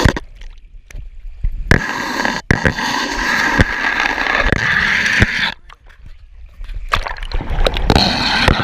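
Water rushing and splashing down a water slide right over a waterproof action camera, with many sharp splashes against the lens. The sound drops away sharply twice, just after the start and about two-thirds in, as the camera dips under the water.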